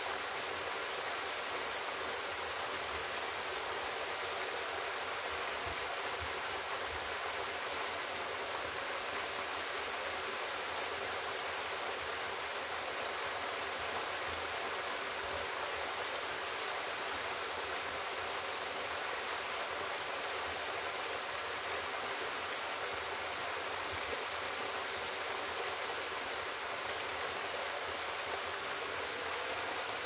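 Steady rush of a small mountain waterfall falling into a rock pool.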